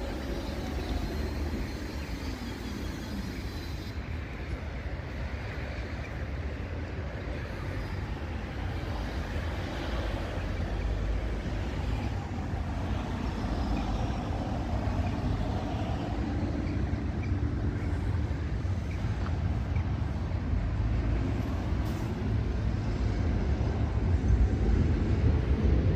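City traffic at a tram junction: trams and cars passing, making a steady low rumble with faint rising and falling whines. The sound grows a little louder near the end.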